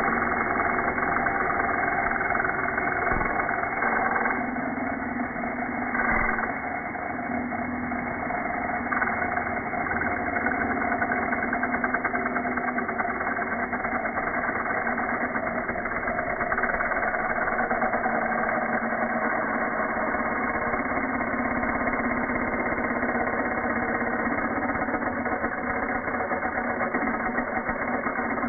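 Bosch angle grinder cutting a steel radiator pipe, slowed down with the slow-motion footage into a low, steady drone with several held tones. The level dips slightly about four to eight seconds in.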